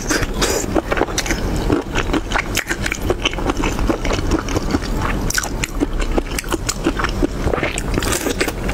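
Close-miked mouth sounds of biting and chewing shrimp coated in chili sauce: a dense, continuous run of small wet clicks, smacks and crackles.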